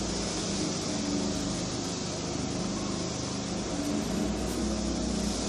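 Steady machine hum with an even hiss, like a running fan.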